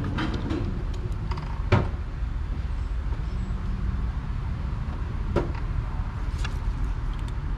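Steady low hum of workshop background noise, with a sharp knock about two seconds in and a lighter one about five and a half seconds in as the soldering tools and solder spool are put down.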